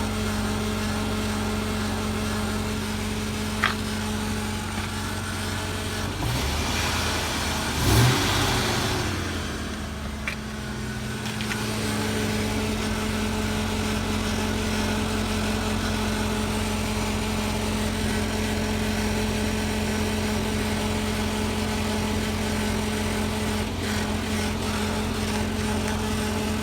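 2000 Chevy Tahoe running with a steady mechanical hum, the grinding/rattling noise from underneath near the fuel filter, whose cause is undiagnosed: a shop suggested the fuel filter, transfer case or fuel regulator. About six seconds in, a louder rush swells, peaks around eight seconds and fades, and there is a single click about four seconds in.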